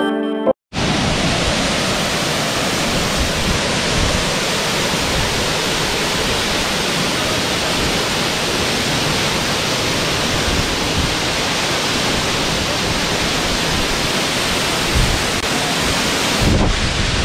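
Waterfall pouring: a loud, steady, even rush of falling water. It follows a short piano phrase that stops within the first second.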